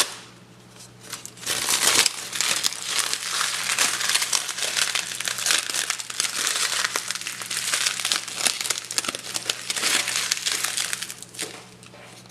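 Foley imitation of a crackling campfire: material crumpled and crinkled in dense, fast crackles. There is a short lull about a second in, and the crackling thins out and fades near the end.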